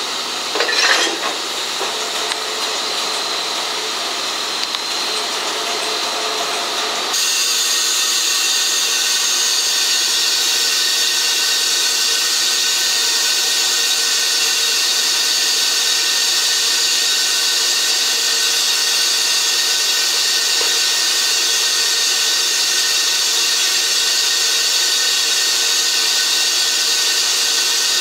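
D51 steam locomotive standing and hissing steam, a steady hiss that suddenly grows louder and brighter about seven seconds in. There is a brief knock about a second in.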